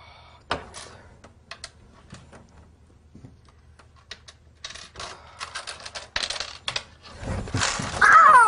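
Clicks and taps on the keys of an electronic cash register, scattered at first and quicker after about four and a half seconds. Near the end come a burst of scuffling noise and a high-pitched wailing shout.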